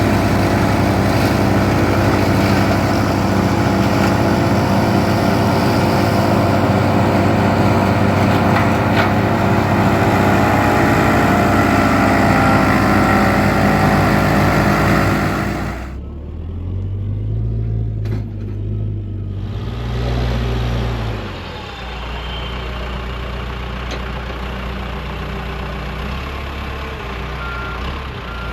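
Tractor engine driving a PTO drum wood chipper, running steadily and loudly. About halfway through the sound drops abruptly to a quieter, steady engine run.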